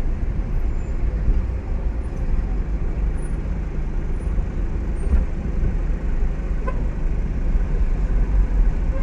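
Steady low rumble of a car's engine and road noise heard from inside the car's cabin while it moves slowly through dense city traffic.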